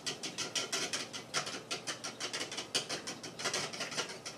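Eggs being beaten in a bowl by hand, the utensil clicking and scraping against the bowl in quick, even strokes, about five or six a second.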